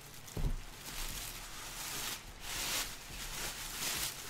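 Plastic wrapping crinkling and rustling as a large wrapped statue base is handled and unwrapped, with a low thump about half a second in.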